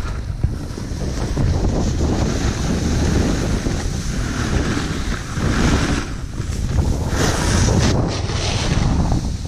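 Wind buffeting the microphone of a pole-held action camera while snowboarding downhill, a steady low rumble. The snowboard's edge scrapes and hisses over the snow twice in the second half, during turns.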